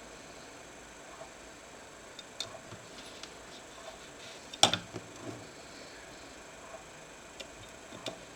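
Scattered light clicks and taps from small laptop parts and tools being handled, with one sharper click about halfway through.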